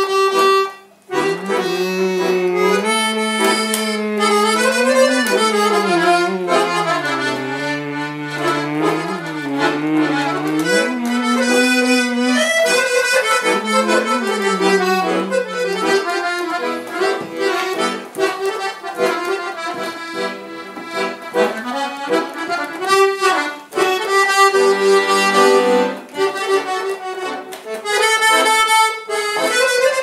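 Piano accordion playing a folk melody, with bass notes moving under the tune through the first half; the playing breaks off briefly about a second in.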